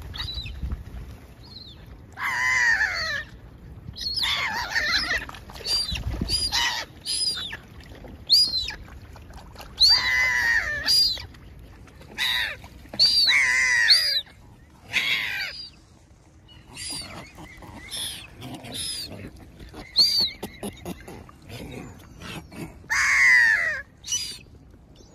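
Birds calling: a long run of loud, short calls, often coming in quick runs of two or three.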